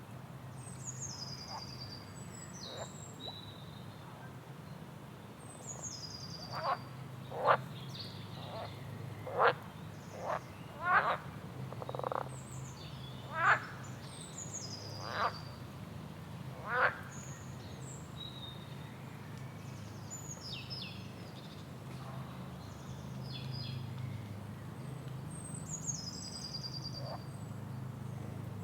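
Rainforest animal calls: high, falling whistled calls repeat throughout, and through the middle a run of about ten loud, short calls, each rising sharply in pitch, stands out. A steady low hum sits underneath.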